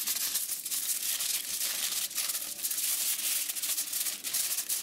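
Aluminum foil crinkling as hands fold and pinch up the corners of a foil tray, a continuous rustle of many small crackles.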